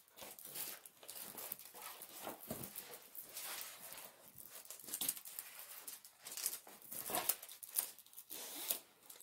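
Rustling and crinkling of a large plastic-covered canvas being handled, in irregular short scrapes and crackles.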